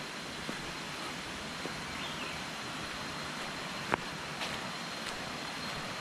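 Steady rushing hiss of outdoor jungle ambience, with a few light ticks of footsteps on the leaf-covered path, the clearest about four seconds in.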